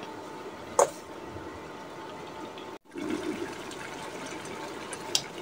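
A pot of noodles in curry broth simmering with a steady bubbling hiss. A metal spoon clinks sharply against the metal pot twice, about a second in and near the end. The sound cuts out for a moment midway.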